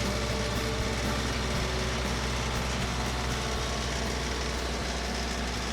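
Tractor engine running steadily at a constant speed, a low even drone.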